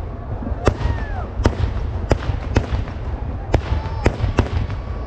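Kerala temple-festival fireworks (vedikkettu) going off: a run of sharp, loud bangs, about eight in five seconds at uneven intervals, over a continuous low rumble.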